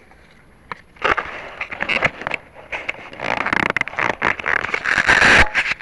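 Handling noise on the onboard camera's microphone as the nose-dived Bixler foam plane is picked up out of long grass: about a second of quiet, then dense crackly rustling and scraping with sharp clicks and knocks, loudest near the end. No motor is running.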